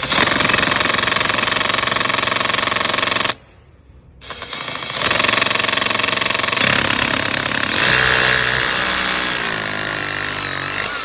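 Cordless drill boring fixing holes, running hard, stopping for about a second a little over three seconds in, then starting again; its pitch falls in the last couple of seconds as it labours.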